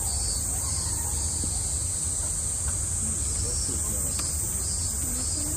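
Cicadas shrilling in a steady, high-pitched summer chorus, with a pulsing call over it and a low steady rumble underneath.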